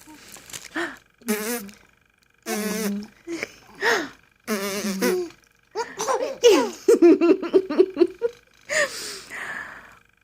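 Fart noises blown with the lips, several buzzy blasts, and a baby laughing in quick bursts, the longest run a little after halfway.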